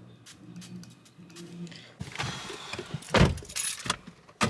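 A faint low hum, then about halfway through rustling and handling noise in a car cabin, with a heavy thump and, near the end, a sharp click.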